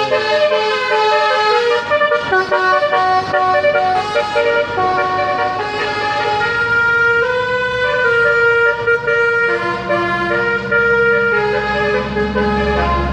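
Basuri telolet multi-tone bus air horn playing a tune, a string of held notes stepping up and down in pitch. A low rumble rises under it near the end.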